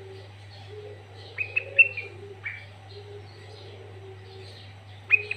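Sooty-headed bulbul (kutilang) calling in short, sharp, downward-sliding notes: a quick run of four about a second and a half in, then two more near the end. Under them run a soft, low warbling and a steady low hum.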